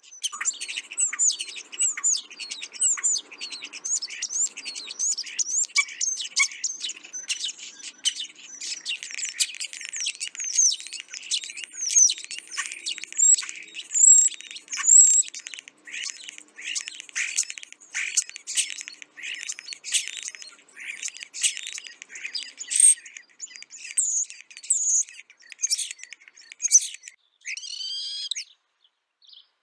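Starlings calling: a dense, continuous run of rapid high chirps, clicks and whistled sweeping notes, with a short lull near the end.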